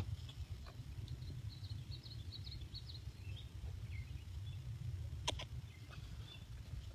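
Low, steady outdoor rumble on a handheld phone microphone, with faint high bird chirps in the first few seconds and a single sharp click about five seconds in.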